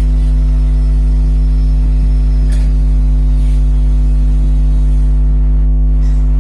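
Loud, steady low electrical mains hum with a stack of higher overtones, with two faint clicks about two and a half and three and a half seconds in.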